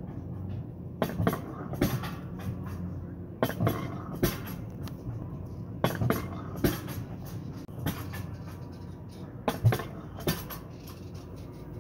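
Mountain coaster sled riding up the lift section of its metal rails: a steady low rumble with sharp clicks and knocks about every second as the sled bounces on the track.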